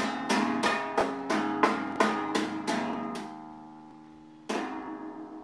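Guitar strumming a chord about three times a second for about three seconds, then left ringing; one more strum about four and a half seconds in rings out.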